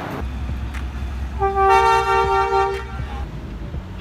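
Train horn sounding one long two-note blast of about two seconds, over a low, steady engine rumble.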